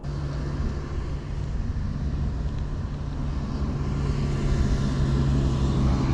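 A steady, low engine drone with a constant pitch that gradually grows louder.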